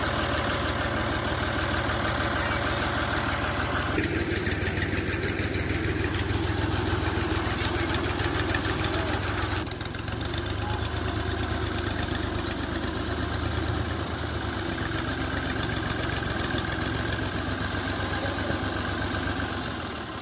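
Diesel tractor engine running steadily with a rapid, even chugging while hauling a trailer loaded with sugarcane; the engine sound changes abruptly about four and ten seconds in.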